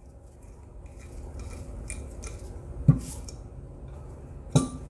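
Metal hand tools clinking as they are handled, with two sharper metallic clanks about three seconds in and just before the end.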